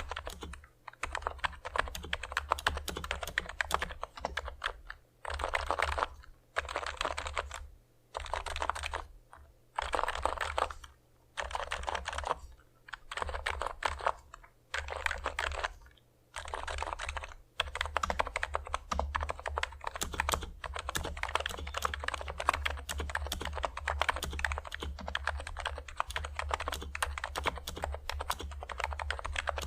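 Typing on a NIZ X87 keyboard with electro-capacitive switches lubed with Krytox 205g0 and thick PBT keycaps. Runs of rapid keystrokes are broken by short pauses at first, then the typing goes on steadily from about halfway.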